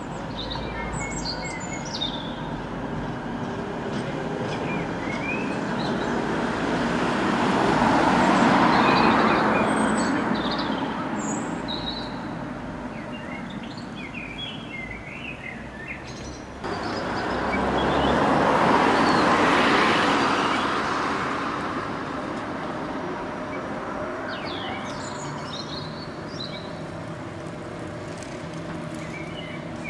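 Street traffic noise with two vehicles swelling past, one about eight seconds in and another about nineteen seconds in, over steady small-bird chirping.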